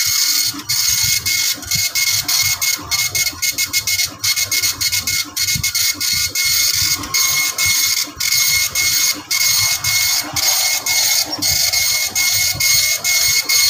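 Epson LQ-2190 24-pin dot matrix printer printing a test page: the print head's high, rasping buzz runs on, broken by many brief pauses.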